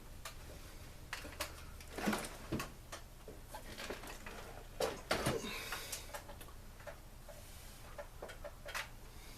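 Plastic and metal parts of a backpack leaf blower being handled and pried apart during disassembly: scattered clicks and knocks, with squeaky creaks about two and five seconds in.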